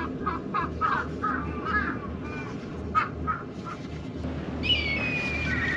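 Birds calling: a quick run of short, repeated calls, a few more after a pause, then one long, slightly falling call near the end, over a steady low hum.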